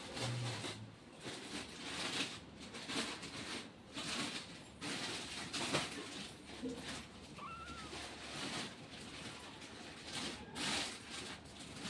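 Soft, irregular rustling and licking noises from a kitten nuzzling and grooming its mother cat, with one faint, short kitten mew about seven and a half seconds in.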